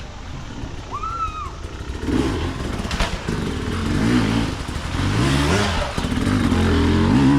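Hard-enduro dirt bike engines revving as riders work through a creek crossing. The pitch rises and falls with the throttle, and the engines get louder toward the end.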